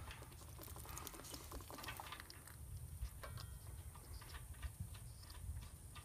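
Faint, scattered clicks and light taps of a hand working a cold start sensor loose from a diesel tractor engine, with no gush of coolant.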